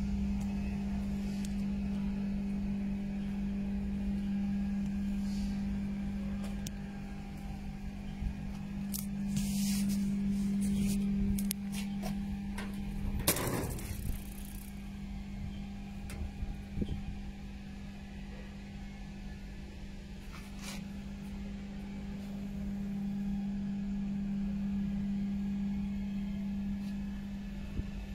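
A steady low mechanical hum at one pitch, with low rumble beneath it, broken by a few faint clicks and one sharper knock about halfway through.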